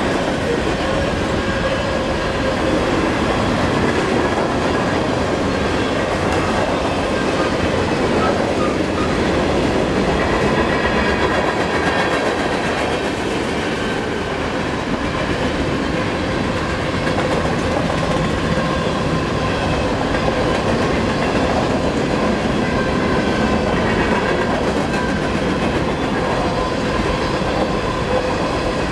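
Freight cars of a manifest train rolling past at speed: a steady rumble and clatter of steel wheels on the rails.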